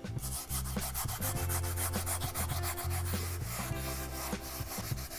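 The scrubby side of a sponge rubbing back and forth on the enamel inside a cast iron skillet in rapid, even strokes, working a cleaner paste into burnt-on polymerized oil to lift it off.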